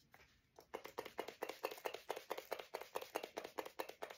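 MAC Fix+ setting spray misted onto the face in a long run of quick pump spritzes, about seven a second, starting about half a second in.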